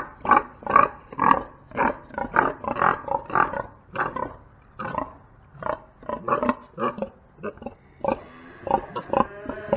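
Domestic pigs grunting close up, a rapid run of short grunts about two to three a second. Near the end comes a longer, higher-pitched call.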